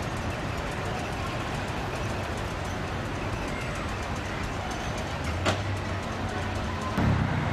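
Heritage electric tram running on street track: a steady rumble of motors and wheels on rail, with a sharp click about five and a half seconds in and a thump near the end.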